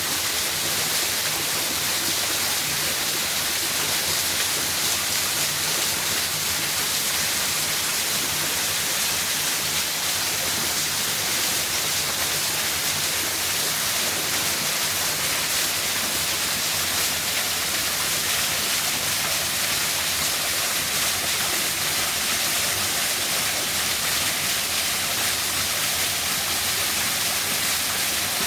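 Waterfall: a steady rush of falling water, unbroken throughout.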